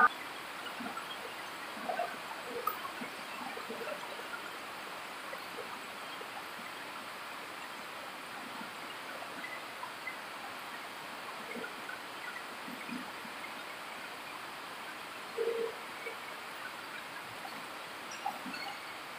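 Steady hiss of an indoor badminton hall's ambience, with faint scattered short sounds of play and one brief louder sound about fifteen seconds in.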